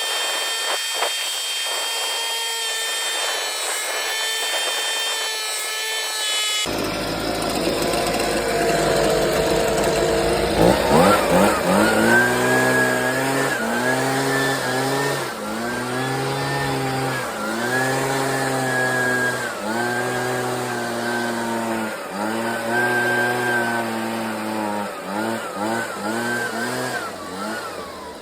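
A steady high-pitched whine for the first several seconds, then a small two-stroke engine, a gas leaf blower, revved in repeated pulses. Its pitch rises, holds and falls back about every two seconds, with a few quicker blips near the end.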